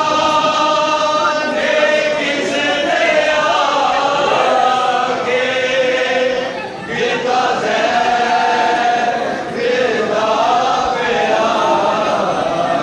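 Many men's voices chanting together in long, sung phrases: a Shia mourning chant (nauha). The phrases break off briefly about 7 seconds in and again about 9.5 seconds in.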